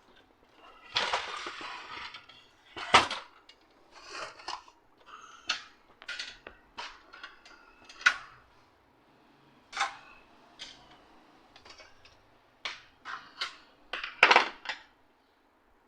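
Plastic casing and parts of an HP LaserJet M1005 MFP laser printer being handled and pried apart during disassembly: irregular clicks, knocks and scrapes, with a longer scrape about a second in and a loud cluster of knocks near the end.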